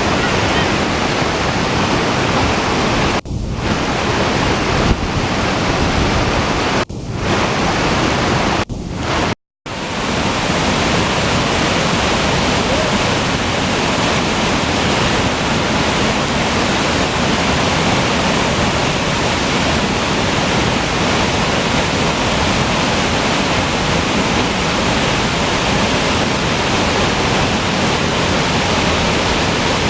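Waterfall pouring: a steady, even rush of falling water. There are a few brief dips in the sound, and a moment of dead silence about nine seconds in where the recording cuts.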